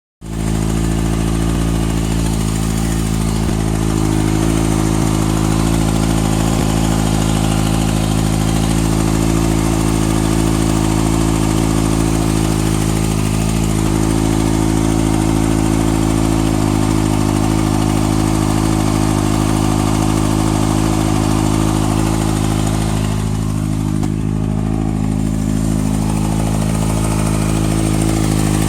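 2014 Kawasaki ZX-6R inline-four engine with a Graves slip-on exhaust idling steadily, with the ticking noise the owner is trying to track down.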